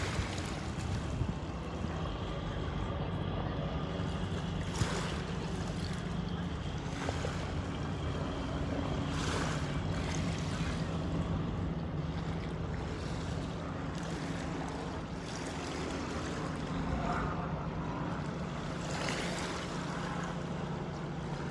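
A steady low motor drone, with wind on the microphone and water noise over it and a few short rushes of noise.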